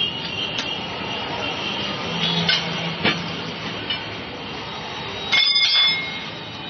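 Steel tyre lever clinking and scraping against the steel rim of a car wheel as a tube is levered into a tubeless tyre: a few sharp clinks, then a louder metallic clank with a brief ringing about five and a half seconds in, over steady traffic noise.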